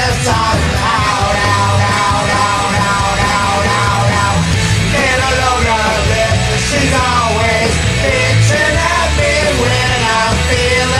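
Loud punk-style rock music from a karaoke backing track, with a man's voice singing and yelling along without clear words.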